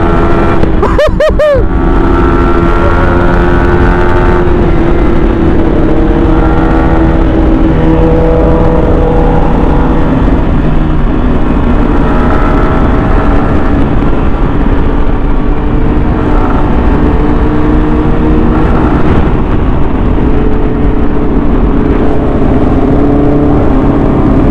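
Sport motorcycle's engine at a steady cruise, its pitch drifting a little up and down, under heavy wind rumble on the microphone.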